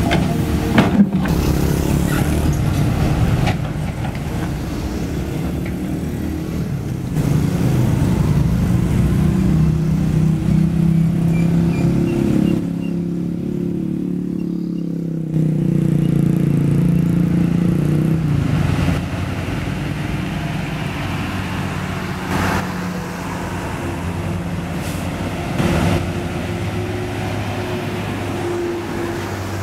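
Heavy diesel engines running steadily: first a CAT 320D2 excavator, with a few knocks and scrapes of its bucket on broken asphalt in the opening second or two, then a Hino 500 dump truck close by. The engine sound steps up and down in level several times.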